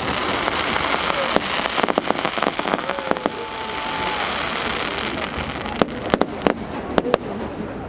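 Fireworks display: a dense crackling hiss from crackling fireworks, with scattered sharp bangs, several of them in a cluster about six to seven seconds in.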